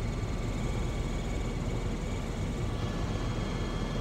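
Helicopter in flight heard from inside the cabin: steady engine and rotor noise, mostly a deep rumble, with faint steady high tones running through it.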